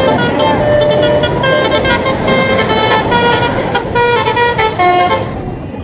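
Bus 'telolet' musical horn playing a quick tune of short, shifting multi-tone notes over engine and traffic noise, fading near the end.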